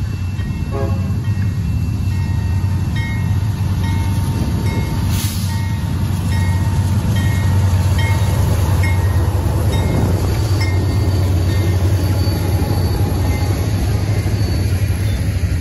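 A train passing with a loud, steady low rumble. Over the middle of the stretch a short high tone repeats about every two-thirds of a second.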